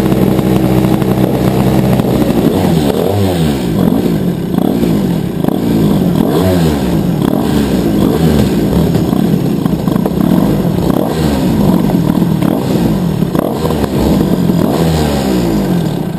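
Two-stroke shifter kart engine running at a steady idle, then revved again and again in short rises and falls of throttle while rolling slowly in the pits. It cuts off near the end.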